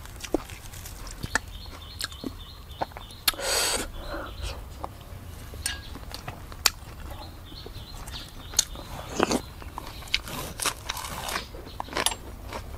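A person eating fresh raw vegetables close to the microphone: crisp lettuce leaves rustling and crunching, chewing, and scattered sharp clicks of a metal spoon in a ceramic bowl. There is a louder crunch about three and a half seconds in.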